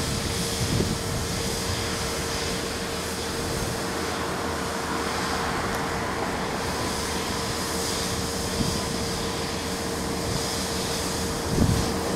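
Steady outdoor noise, a rumbling hiss with a constant mid-pitched hum, and a brief low thump near the end.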